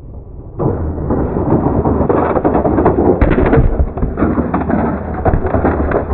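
Tyco Crash Test Dummies toy car rolling across a hard floor and crashing into plastic dummy figures. It makes a dense, muffled rumble full of knocks and clatter, starting about half a second in.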